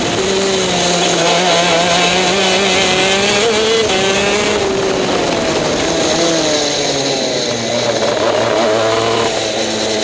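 TM K9C 125 cc two-stroke shifter kart engine running hard on track, heard from the driver's seat, its pitch wavering up and down with the throttle and sagging over the last few seconds.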